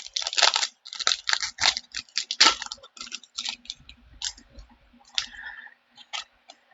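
Crinkly clicks and crackles of a foil Pokémon card booster pack and cards being handled, dense at first and thinning out after about three seconds.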